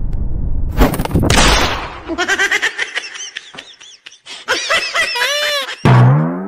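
A sudden blast like an explosion about a second in, with a rumble before it. It is followed by a run of short, high-pitched comic sounds and clicks, and a loud low sound that rises in pitch near the end.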